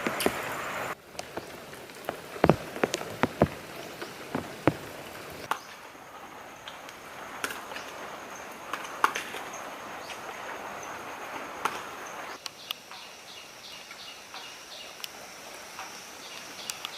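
Outdoor ambience with scattered sharp clicks and knocks of things being handled. A thin, steady high whine sets in a few seconds in and stops abruptly about three-quarters of the way through, giving way to a faint, regular high ticking.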